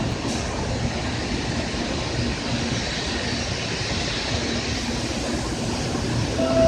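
Steady rumbling train noise on a Shinkansen platform. Near the end, a tonal electronic chime starts up, the kind that signals an approaching train.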